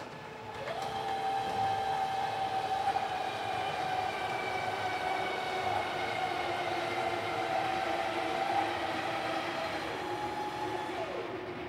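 The DarkAero 1's three small electric landing-gear retract motors whine as they drive the gear struts up. The pitch rises quickly as the motors ramp up in speed, holds steady through the travel, then drops near the end as they slow into the fully retracted position.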